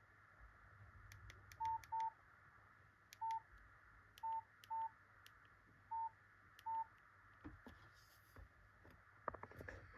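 Nokia 8800 Arte mobile phone keypad pressed seven times at an uneven pace, each press a faint click followed by a short single-pitch beep. A few soft handling clicks and rattles near the end.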